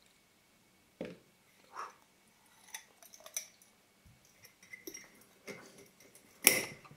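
Small metal lens rings and parts clinking and tapping against hard surfaces as they are handled for cleaning. It comes as a string of separate clicks and knocks, roughly one a second, with the loudest clink near the end.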